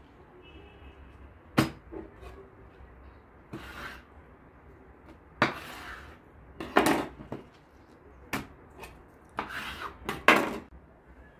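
A kitchen knife knocking and scraping on a wooden cutting board as blanched cabbage leaves are cut, with a handful of sharp knocks spread through and short wet rustles of the soft leaves between them; the sharpest knock comes near the end.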